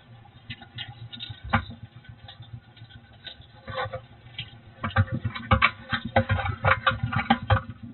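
Dry straw rustling and crackling under a hedgehog as it moves through it, in quick irregular crackles that get louder and denser about five seconds in.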